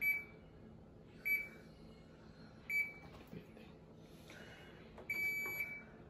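Control-panel beeps from a Panasonic NA-S96FG1 front-loading washer-dryer as its buttons are pressed. There are three short high beeps about a second and a half apart, then a longer beep about five seconds in.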